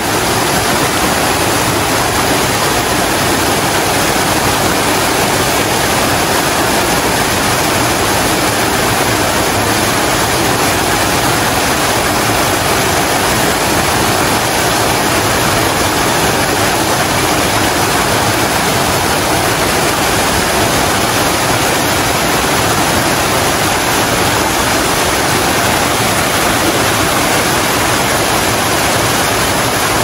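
Waterfall close by: a loud, steady rush of falling water, even and unbroken throughout.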